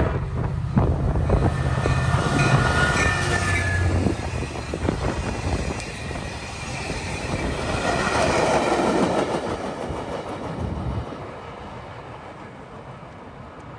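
A diesel-hauled passenger train passing close by. The locomotive's engine hums low through the first few seconds, then the coaches roll past with the wheels clicking over the rail joints, and the sound fades after about 11 seconds.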